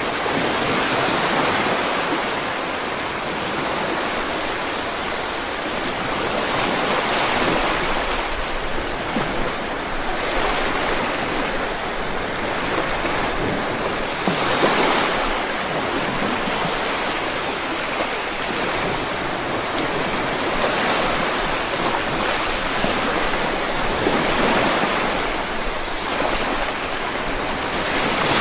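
Steady heavy rain: an even hiss that swells and eases gently every several seconds.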